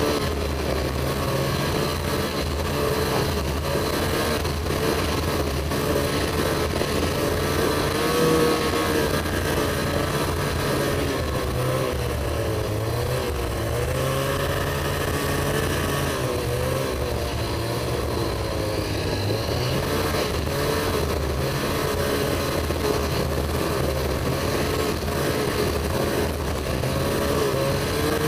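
Ski-Doo Summit snowmobile's two-stroke engine running steadily under the rider, its pitch wavering up and down with the throttle as the sled travels along a snow trail.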